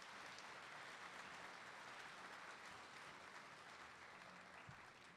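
Faint audience applause, a steady patter of many hands clapping that dies away near the end.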